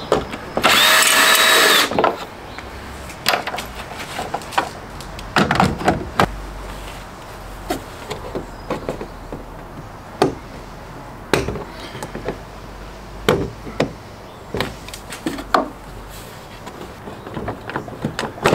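Ryobi cordless drill-driver running once for about a second, backing out a Torx 30 headlight screw, its motor pitch bending up as it starts and down as it stops. After it come scattered clicks and knocks of hands working plastic parts behind the headlight.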